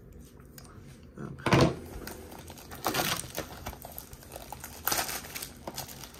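Plastic shrink wrap on a trading-card hobby box crinkling and tearing as it is cut open and pulled off by hand, in several bursts, the loudest about one and a half seconds in.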